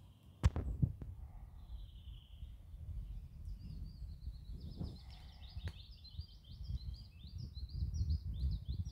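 A small songbird singing a fast series of high, repeated chirps from about three and a half seconds in, over a low rumbling noise. There is a single sharp click about half a second in.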